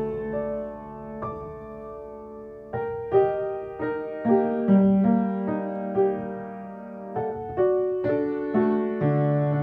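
Piano music: held chords with a slow melody of single struck notes that ring and fade, the notes coming about every half second from about three seconds in.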